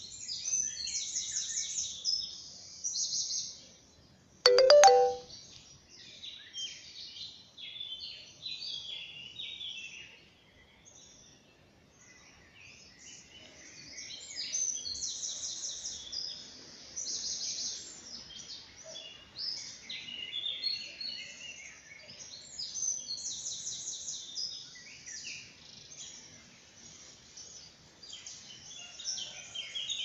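Songbirds singing at dawn: many high chirps and fast trilled phrases, loudest in three spells near the start, midway and about three-quarters through. A brief, loud, lower-pitched call or beep stands out about four and a half seconds in.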